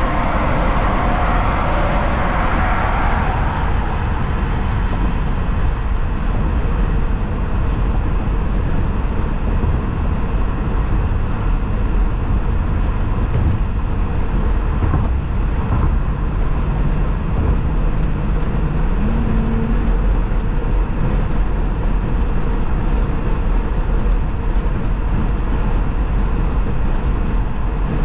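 Car driving at freeway speed: steady road and tyre noise with a low rumble. A brighter rushing swell in the first few seconds fades away.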